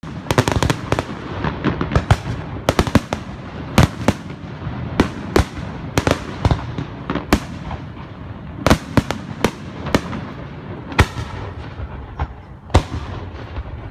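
Aerial fireworks shells bursting in an irregular string of sharp bangs, several close together in the first second, then spaced out.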